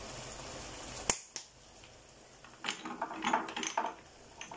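Parsley being shaken and crumbled into a simmering seafood sauce: a run of small dry crackles and taps. It comes after a faint hiss that ends with a sharp click about a second in.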